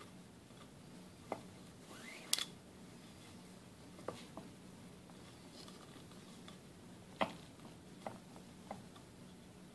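Faint handling sounds of nylon paracord being threaded and pulled tight on a wooden jig: a short swish and about half a dozen scattered soft clicks, the loudest about two and a half seconds in, over a steady low hum.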